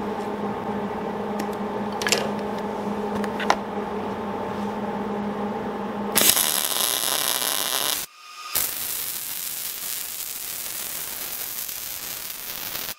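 Electric arc welding on a steel part: after about six seconds of steady hum with a few clicks, the arc strikes and runs with a loud, even crackling hiss, breaks off briefly about eight seconds in, and strikes again.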